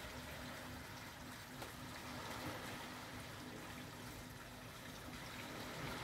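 Gentle surf of a calm sea washing onto a sandy beach: a soft, steady wash of noise, with a faint steady hum underneath.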